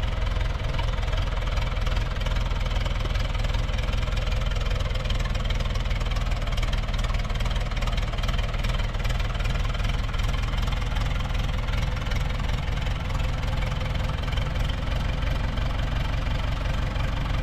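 Engine idling steadily close by, with a fast, even firing beat over a low rumble.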